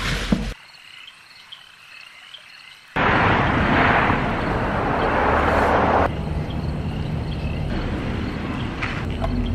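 Crickets chirping in a steady, even rhythm at a high pitch. From about three to six seconds in, a loud rushing noise covers them, then drops back.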